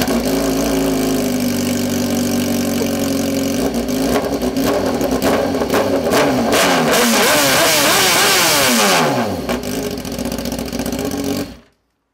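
BMW S 1000 RR inline-four engine breathing through a full titanium Akrapovic Evolution exhaust with a carbon muffler and no catalytic converter. It runs at idle, is revved up to a high held pitch, then drops back to idle. The sound cuts off suddenly near the end.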